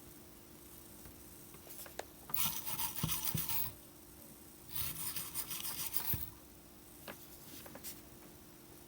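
Two bursts of scratchy rubbing, each a little over a second long, with a few light clicks before and after.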